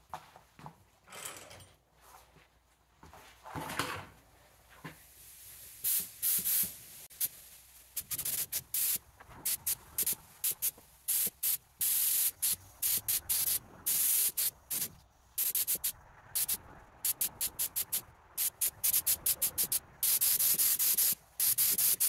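Gravity-feed paint spray gun on compressed air, hissing in many short trigger-pull bursts, with longer bursts near the end and a few soft handling noises before it starts. It is spraying unthinned red oxide primer: little paint comes out and the gun spits, because the primer is too thick to atomize and needs thinning.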